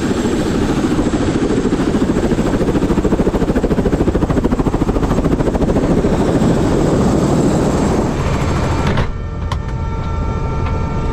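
Helicopter running up for take-off, its rotor beating fast and evenly under the turbine noise. About nine seconds in, the sound drops to a lower, steadier run with a few thin, steady whining tones.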